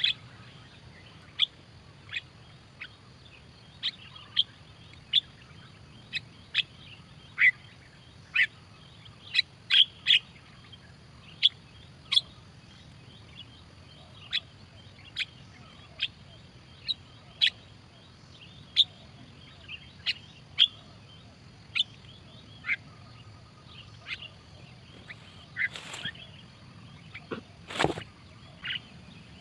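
Birds giving short, sharp high chirps one after another, roughly once a second. Near the end there is a louder thump.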